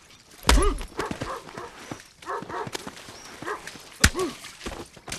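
Bare-knuckle fist-fight sounds: several punch impacts, the heaviest a deep thud about half a second in and another sharp hit about four seconds in, with short yelping cries between the blows.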